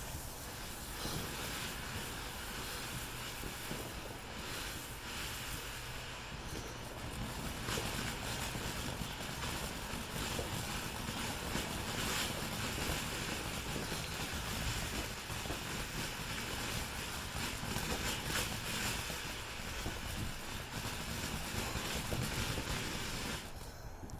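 Steady rushing wind noise on the microphone, with no distinct bangs.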